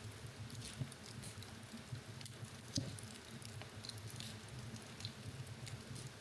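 Wood fire in a fireplace crackling: scattered small pops and ticks over a low steady rumble, with one sharper pop a little before the middle.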